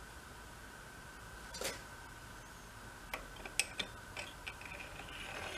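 Small metal clicks and ticks from a winch motor's brush end cap being worked onto its housing while the brushes are held back: one click about a second and a half in, then a quick cluster of sharp ticks a second later, over a faint steady hum.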